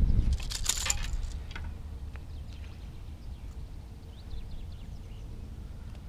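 Wind rumbling on the microphone, with a brief rustle about half a second in while a small caught pike is held on the lure. A few faint short chirps come near the middle.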